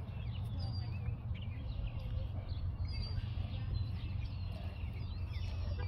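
Small birds chirping in quick, high, scattered notes over a steady low rumble.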